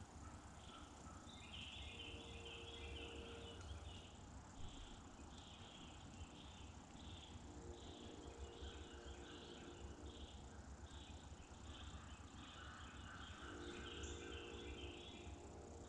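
Faint chorus of night insects chirping in a steady pulse, about two chirps a second, over a low rumble.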